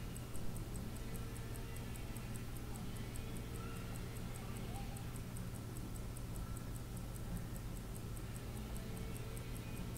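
Fast, even ticking of an R&S Lever 15-jewel Swiss wristwatch movement running with its caseback open, about five ticks a second. A brief knock about half a second in.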